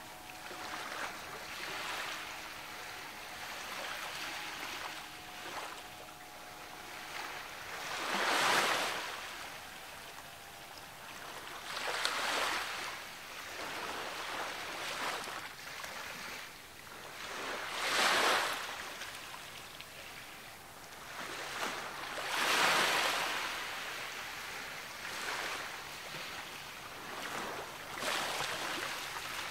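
Ocean waves breaking on the shore: surf swelling into a loud rush about every four to six seconds, then washing back, over a constant hiss of water.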